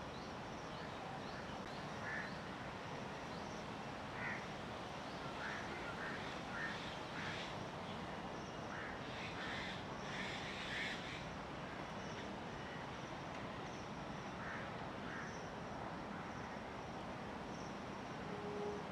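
Outdoor ambience with scattered short animal calls, some in quick runs of three or four, the busiest stretch about halfway through. Faint, thin high chirps repeat throughout over a steady background hiss.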